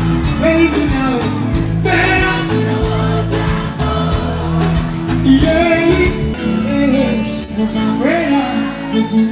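Live pop music played loud through a concert PA, with a male singer's voice over a steady beat and bass line.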